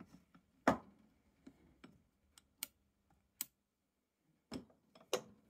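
Scattered sharp clicks and knocks, about seven, as the parts of a vintage hand-cranked breast drill are handled and the side handle is taken off. The loudest comes about three-quarters of a second in, with another strong one near the end.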